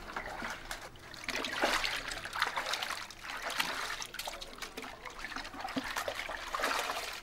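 Kava liquid sloshing and trickling in a plastic bucket as a fibrous strainer is dunked and wrung out to filter out the kava root particles, in uneven wet splashes.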